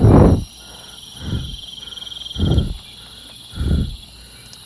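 Crickets chirping steadily, under a slow, even series of dull low thuds, about one every second and a bit; the first thud is the loudest.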